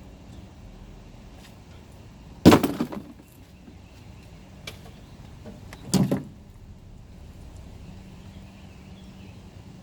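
Two loud clattering impacts about three and a half seconds apart, each with a short rattle after it.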